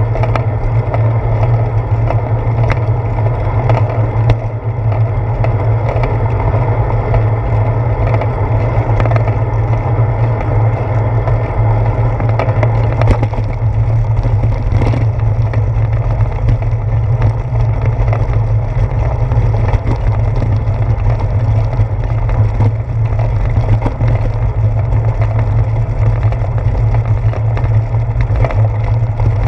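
A bicycle rolling along, heard through a seat-post-mounted GoPro: a steady, heavy low rumble of wind and road vibration. Scattered rattling clicks come more often from about halfway, once the tyres are on brick paving.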